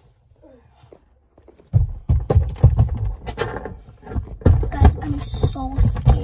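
A person's muffled, unclear voice mixed with rubbing and knocking right on a phone's microphone. It starts suddenly about two seconds in, after near quiet.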